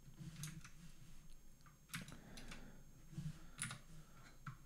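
Computer keyboard and mouse clicks: a few short, sharp clicks about a second apart.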